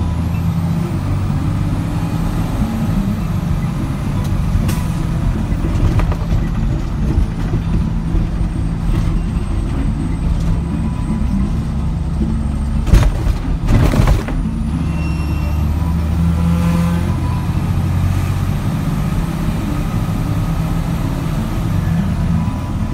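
Vehicle engine and road noise heard from inside the cab while driving, a steady low hum. About halfway through come two loud knocks about a second apart.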